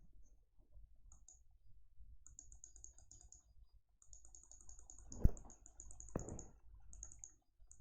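Faint computer clicks, a sharp one about five seconds in and another about a second later, over a faint, high, rapidly pulsing sound: a test sound effect played through the computer's speakers.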